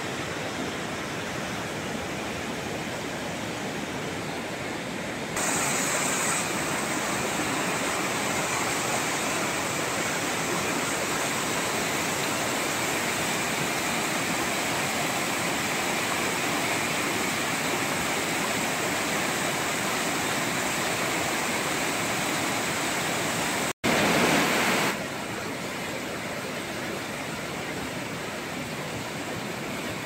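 The Mumlava river's waterfall and rapids rushing over granite cascades, a steady roar of white water. It grows louder about five seconds in. It shifts level again at a brief dropout about 24 seconds in.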